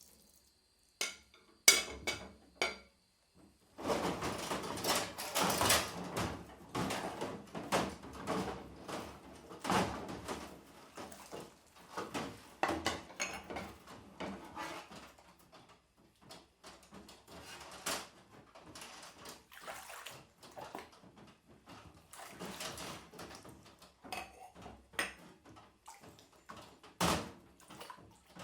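Dishes being washed by hand in a sink: plates and utensils clinking and knocking together amid water splashing. A few ringing clinks open it, a busy stretch of water and clattering starts about four seconds in, and it thins out into scattered clinks and splashes.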